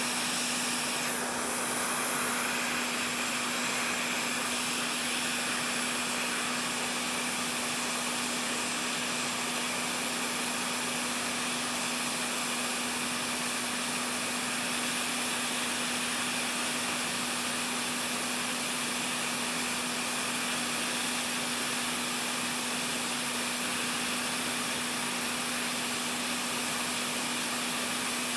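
Small electric blower running steadily: an even rush of air over a constant motor hum, switched on just before this moment.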